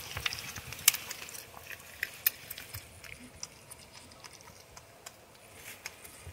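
Porcupine chewing peanuts: irregular small crunches and clicks, thinning out in the second half.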